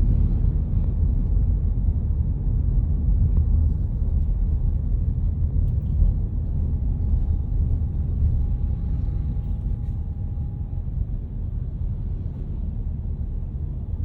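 Car interior road and engine rumble while driving, a steady low drone, with a faint thin tone in the middle few seconds.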